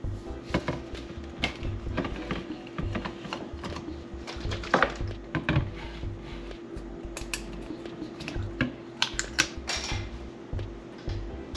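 Plastic coffee-creamer bottles being handled on a kitchen counter: a string of clicks, knocks and light thuds as a bottle is shaken, its cap worked and set down. A steady hum runs underneath.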